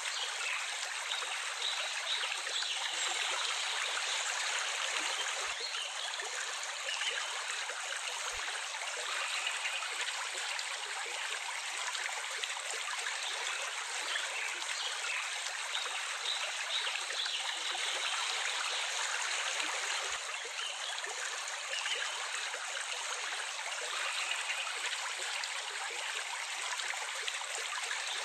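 Running water of a stream, flowing and trickling in a steady, unbroken rush.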